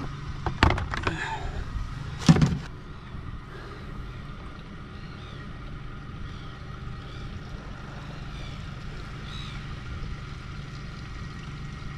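Boat's outboard motor idling steadily just after starting, with a few sharp knocks in the first few seconds, the loudest about two seconds in.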